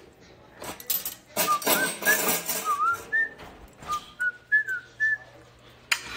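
A woman whistling a short, halting tune of brief notes, some sliding up or down. A loud rustling clatter comes under the first notes, and there is a sharp click near the end.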